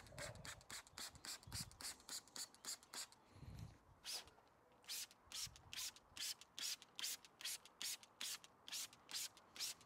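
Hand trigger spray bottle squirting a liquid dressing over an engine bay in quick repeated sprays, about three to four a second, with a brief pause about three seconds in.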